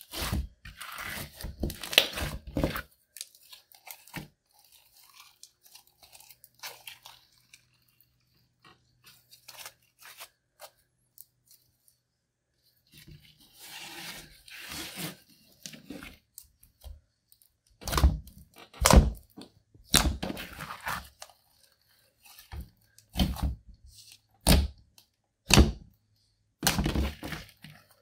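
Clear slime mixed with bronze eyeshadow being kneaded, squeezed and stretched by hand, giving wet crackling and sharp popping as air pockets in it burst. The sounds are busy at first, sparse and quieter for several seconds in the middle, then come as a run of loud separate pops over the last ten seconds.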